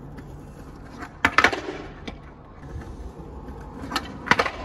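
Skateboard wheels rolling over concrete paving slabs, with sharp wooden clacks of the tail popping and the board landing: a cluster a little over a second in and another near the end as the skater pops a trick.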